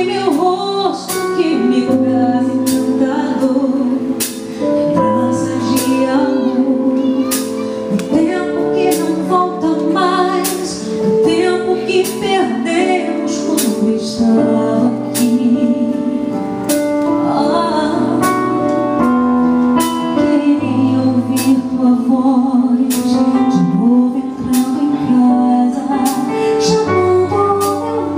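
A woman singing a slow gospel song over band accompaniment with a steady beat.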